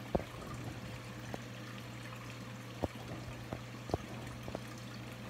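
Water trickling and flowing in a reef aquarium over a steady low hum, with a few short, sharp clicks.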